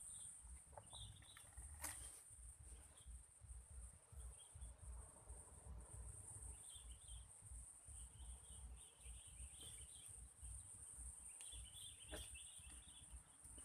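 Faint outdoor ambience: a steady high insect drone with short bird chirps now and then, strongest near the end, over a low rumble.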